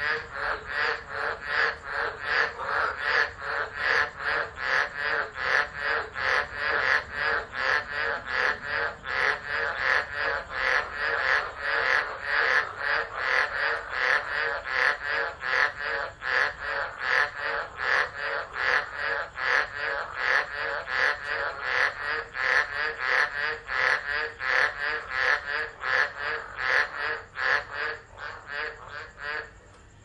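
Frogs calling in a steady, even run of croaks, about two a second, that stops just before the end.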